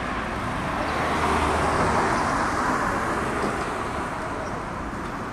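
Street traffic: a vehicle passing, its tyre and engine noise swelling to a peak about two seconds in and then fading back into steady traffic noise.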